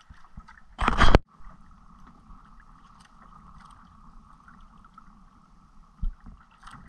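Steady wash of water and wind around a small outrigger boat at sea, broken by one loud, short burst of noise about a second in and a brief low knock near the end.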